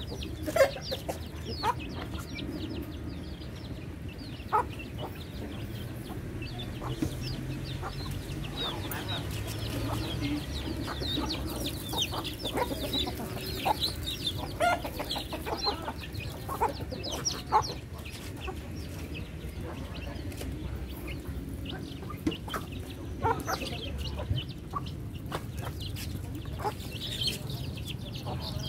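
A flock of chickens feeding: hens clucking and chicks peeping in many short high chirps, with scattered sharp taps of beaks pecking grain off concrete.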